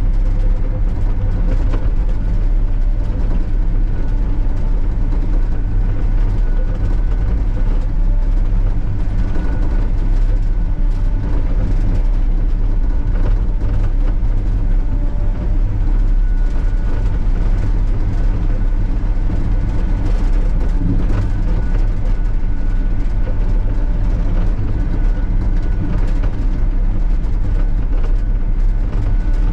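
Sany SY35U mini excavator's diesel engine running steadily under working load, with a faint high whine that comes and goes.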